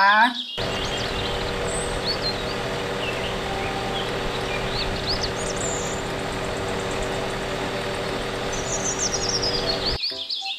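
The engine of a truck-mounted aerial work platform running steadily, with birds chirping now and then over it. It cuts off abruptly near the end.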